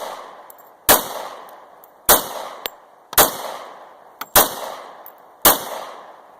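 Five handgun shots fired at a steady pace, about one a second, each with a long echo fading after it.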